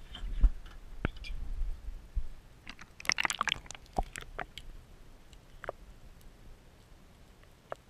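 Camera in a waterproof housing going into seawater: low thuds and sloshing as it breaks the surface, the loudest thud about half a second in. Then a quick cluster of sharp clicks about three seconds in and a few single clicks after.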